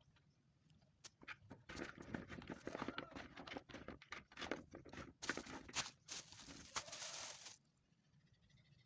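Close rustling and crackling with many sharp clicks, starting about a second in and stopping abruptly near the end.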